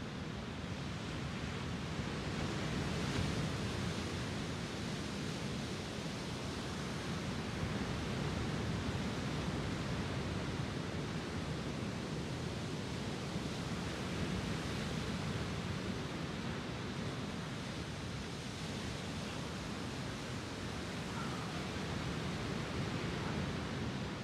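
Lake Superior waves breaking and washing up the beach: a continuous wash of surf that swells and eases every several seconds.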